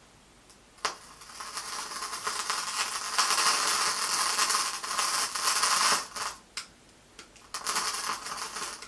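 Butane torch lighter clicked on and hissing steadily for about five seconds, then two more clicks and a second, shorter hiss that ends in a sharp click. It is being held to a candle wick that won't catch, which she thinks is wet.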